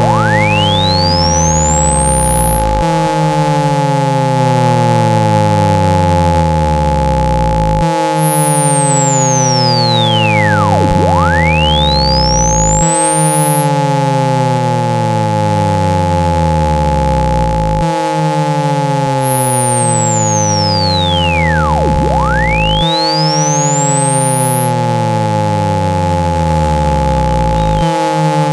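Synthesized speaker-cleaning tones for ejecting water from a phone speaker. A steady low hum and two steady higher tones sound together, with falling pitch sweeps that restart about every five seconds and a thin whistle that slowly climbs very high and falls back again.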